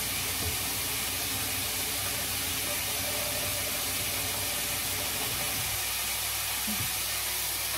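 Diced meat sizzling steadily in a frying pan, an even hiss of frying with no break.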